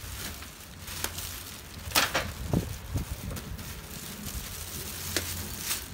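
Cardboard and plastic packing being handled as a boxed steam cleaner is worked out of its carton: scattered knocks, scrapes and crinkles, a cluster of them about two to three seconds in.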